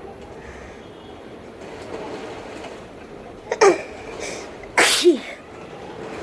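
A woman sneezing twice, about a second apart, each sneeze a sudden loud burst ending in a short cry that falls in pitch.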